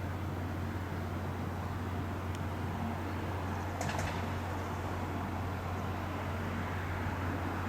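A steady low engine hum, with a short high squeak about four seconds in.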